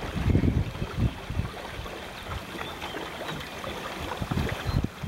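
Wind buffeting the microphone in irregular gusts aboard a sailing canoe under sail, over a steady wash of choppy water against the hull.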